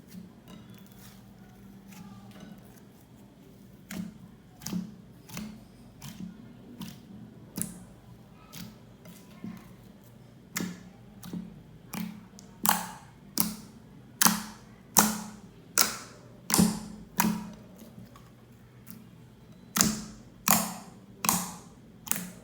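Slime being squeezed and pressed by hand, giving a run of sharp clicks and pops, louder and closer together from about halfway through.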